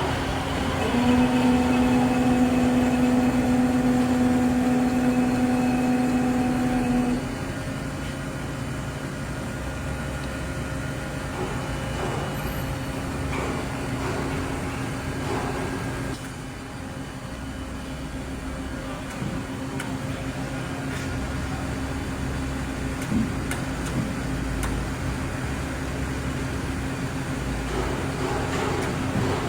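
Ikegai TNC-75 CNC lathe running under power with a steady machine hum. A louder steady whine rides on top from about a second in and stops about seven seconds in.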